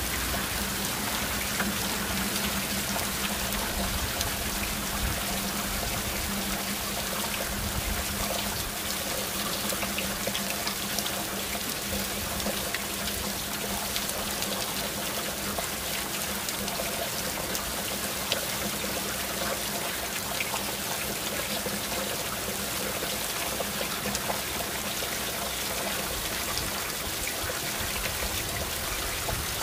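Heavy rain falling steadily in a downpour: an even hiss, with scattered drops ticking on nearby surfaces.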